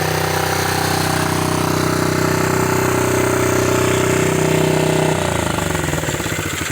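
A freshly rebuilt 50cc pit bike engine running steadily, then shut off about five seconds in, its firing slowing and dying away.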